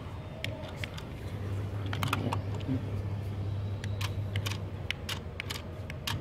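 Light plastic clicks and taps from hands handling a toy RC car, scattered irregularly over a low steady hum.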